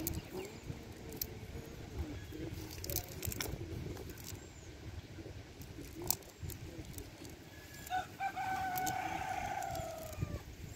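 A rooster crows once, starting about eight seconds in: a long, pitched call that drops in pitch at its end. Around it, light clicks and rustling come from a cast net being handled as prawns are picked out of it.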